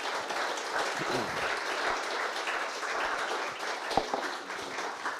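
Audience applauding, a dense patter of many hands that eases off slightly near the end.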